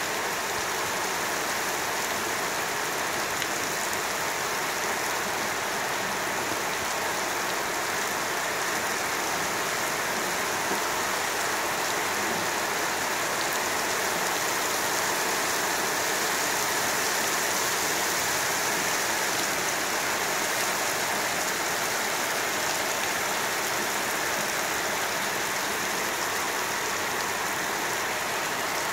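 Steady rain falling on wet brick paving: an even, unbroken hiss of drops that keeps up throughout.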